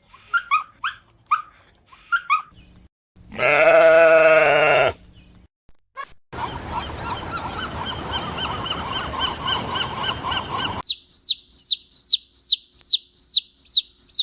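A succession of different animal calls: a few short high chirps, one loud drawn-out pitched call, a noisy stretch of many overlapping chirping calls, then a quick series of high falling chirps, about three a second.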